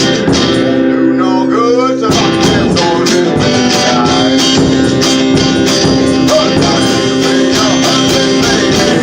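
A one-man band playing a song: guitar over a steady percussion beat, with a voice singing in places.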